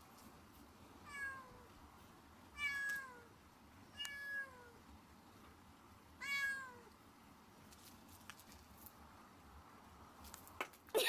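A domestic cat meowing four times, each call falling in pitch at its end, begging for something held out of its reach. A few sharp clicks or knocks near the end.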